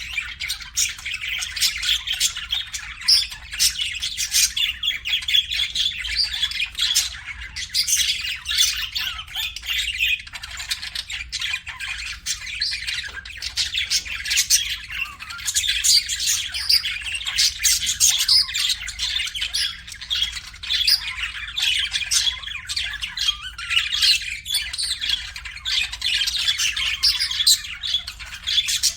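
Pet budgerigars chattering continuously, a dense mix of warbles, chirps and short squawks with no pause.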